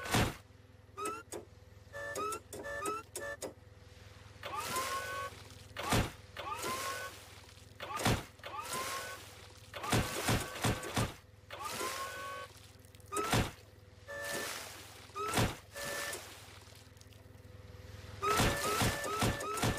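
A forklift ramming a whale's carcass over and over: heavy thuds about every two seconds, each often led by the forklift's rising motor whine as it drives in. Short beeps in groups while it backs up, and a steady engine hum underneath.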